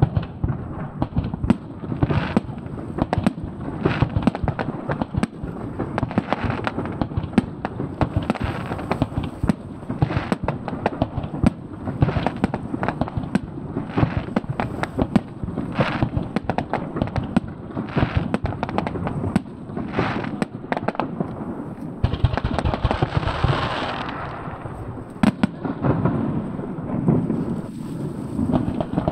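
Aerial fireworks bursting one after another: a near-continuous string of bangs and pops. About three-quarters of the way through they thicken into a few seconds of dense hissing noise.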